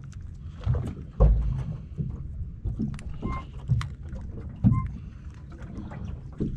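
Water lapping and knocking against the hull of a small open fishing boat, with wind rumbling on the microphone and a heavy knock about a second in. A few short high chirps and light clicks come through as well.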